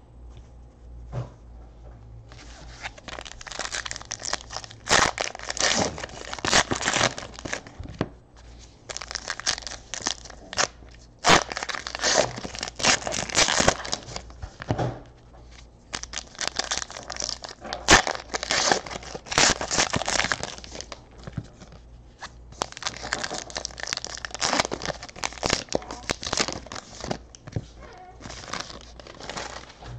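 Plastic trading-card pack wrappers being torn open and crinkled in the hands, in four long stretches of rustling and crackling with short pauses between them.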